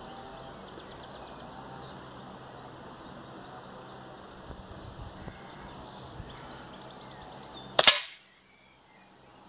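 An air rifle fires a single shot, one sharp crack near the end, over a faint steady outdoor background. The sound drops out for about a second just after the shot.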